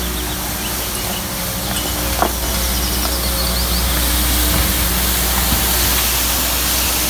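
Compact street sweeper working: its engine and suction fan running steadily with a hum under a dense hiss as the rotating side brushes sweep litter off the paving. A single short knock about two seconds in.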